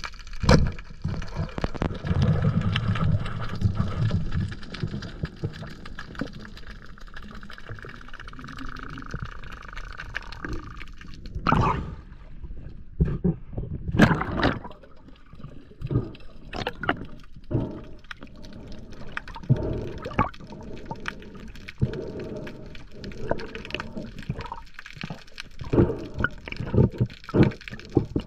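Water sloshing and gurgling, with many short clicks and knocks scattered throughout.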